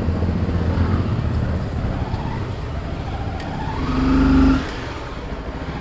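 Motorcycle engine running at low speed while the bike is manoeuvred slowly, with a short, louder rise in engine sound about four seconds in.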